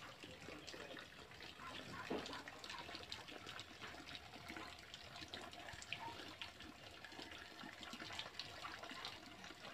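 Water trickling and splashing steadily, a faint running-water sound made up of many small irregular splashes.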